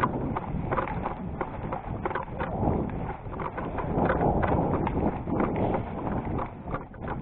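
A person running in boots on concrete: quick, regular footfalls with steady rustle and rubbing on the body-worn microphone, dying down at the very end.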